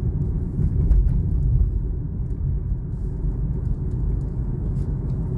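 A car driving along a hilly road, heard from inside the cabin: a steady low rumble of engine and tyres.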